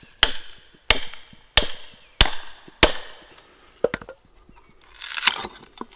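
A hammer strikes the back of a froe five times in an even rhythm, each blow ringing briefly as the blade is driven down into a block of ash. Near the end comes a crackle of the wood tearing apart as the froe is levered to split off a shingle.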